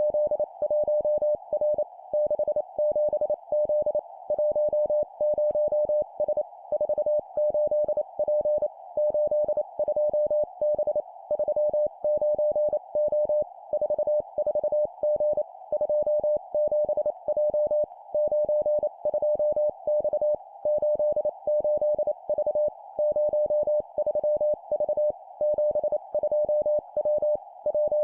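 Morse code (CW) sent at 25 words per minute: a single steady medium-pitched tone keyed on and off in quick dots and dashes, in three-character groups of two numbers and a letter, with short pauses between groups. A steady hiss runs underneath.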